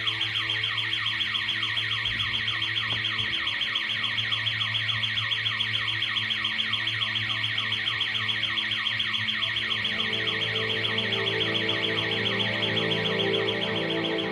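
Perimeter intruder alarm siren sounding continuously: a loud, high-pitched electronic tone with a rapid repeating sweep, several pulses a second, set off by a person entering the protected driveway.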